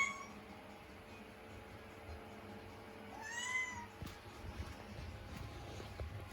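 Scottish Fold kitten meowing: one call about three seconds in that rises and falls in pitch, just after the end of an earlier meow at the very start. These are the cries of a kitten stuck on top of a curtain rail and unable to get down.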